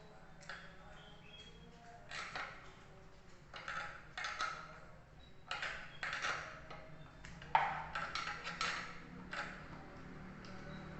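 Hand tools clinking and scraping on the metal parts of an electric water heater being taken apart: a string of irregular short clatters and scrapes.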